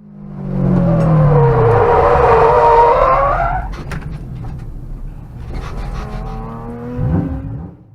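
A car engine at high revs, its pitch rising and falling, loudest in the first half, with a second, quieter climb near the end.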